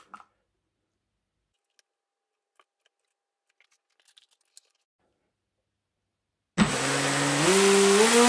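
A few faint clicks, then about six and a half seconds in a Leopard 2860 2550 kV brushless motor turning a 6x6 Graupner CAM Speed propeller starts suddenly on a bench power test. It whines with a rush of propeller air, holds low, steps up once, then climbs steadily in pitch as the throttle is opened.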